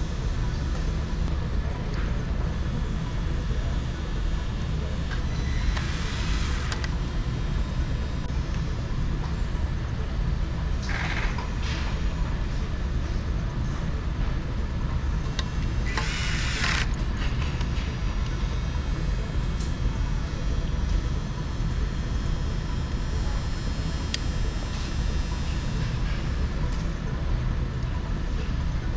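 Steady low background rumble, with three brief scratchy handling noises about six, eleven and sixteen seconds in, as wires and parts are worked on.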